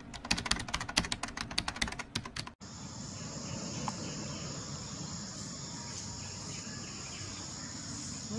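Rapid keyboard-typing clatter for about two and a half seconds, used as an intro sound effect, cutting off sharply. Then insects drone steadily at a high pitch in forest.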